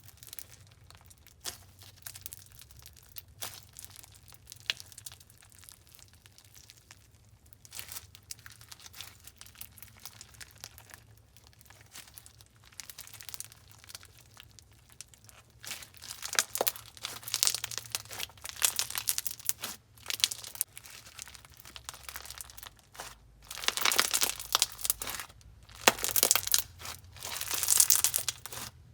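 Medium and jumbo foam bead crunch slime with rubber wafer pieces being squeezed and worked by hand, the beads crackling and popping. Sparse, quiet pops at first, then louder bouts of dense crackling about halfway through and again near the end.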